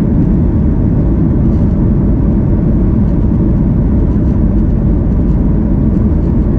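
Steady low rumble of a Boeing 737 MAX 8's CFM LEAP-1B engines and airflow, heard inside the passenger cabin.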